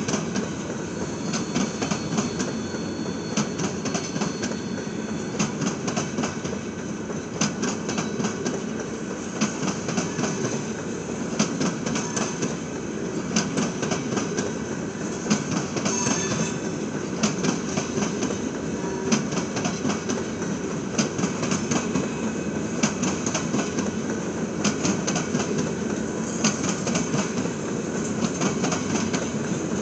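Freight train cars rolling steadily past, a continuous rumble of steel wheels on rail with frequent clicks and clatter as the wheels cross rail joints.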